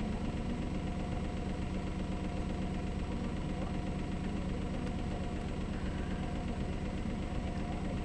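Steady low engine-like hum, like an idling motor, running evenly throughout, with no bird call standing out above it.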